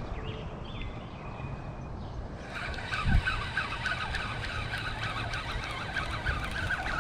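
Outdoor ambience: a steady low rumble of wind on the microphone, with birds calling. From about two and a half seconds in, a dense chorus of short chirps sets in, and there is a single thump about three seconds in.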